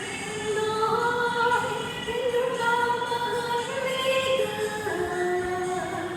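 A voice singing a slow melody in long, held notes that slide and step between pitches, with little break between them.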